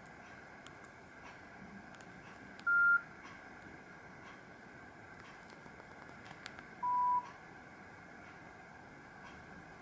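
Nokia 7310 mobile phone giving two short single beeps about four seconds apart, the first higher-pitched than the second.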